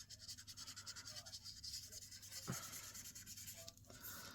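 Alcohol-ink marker (Stampin' Blends) scribbling on cardstock in quick back-and-forth strokes, faint, with a light tap about two and a half seconds in.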